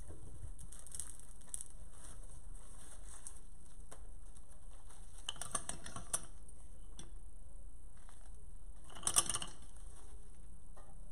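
Artificial flowers and greenery rustling and crackling as their stems are handled and worked into a floral arrangement, with a few small clicks and a louder crackle about nine seconds in, over steady background noise.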